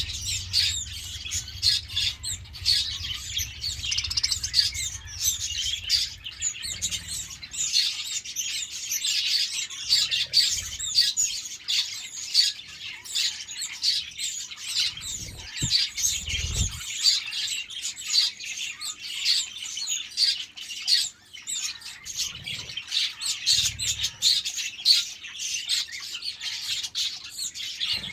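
A flock of budgerigars chattering with dense overlapping chirps and squawks from many birds at once, without a pause.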